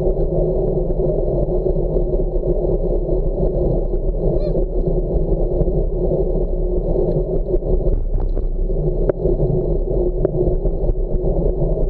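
Steady low rumble of wind and tyre noise from a bicycle riding on wet pavement. A brief faint squeak comes about four seconds in, and a couple of light clicks near the end.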